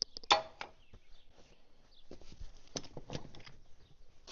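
Scattered clinks and knocks of hand tools on the steel parts of a bulldozer's track tensioner as pieces are worked loose, irregular, with the sharpest knock about a third of a second in.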